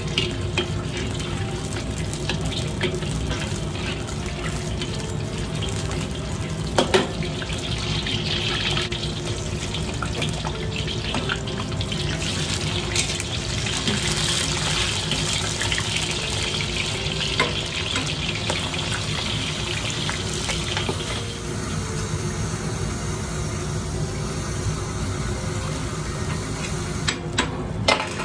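Ginger and spring onion sizzling in hot oil in a wok, with a few sharp clinks of a metal ladle against the wok. The sizzle grows louder about eight seconds in and eases off again around twenty seconds.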